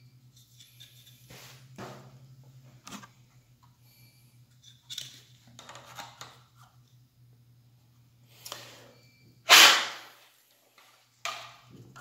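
Plastic clicks and scrapes as the cover ring and head of a System Sensor smoke detector are handled and fitted together, with a sharp snap a little before ten seconds in and another shortly after.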